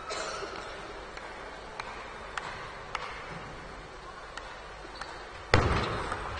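Table tennis ball: a few faint, evenly spaced ticks, then about five and a half seconds in a sudden loud hit that rings on briefly as the serve opens the rally.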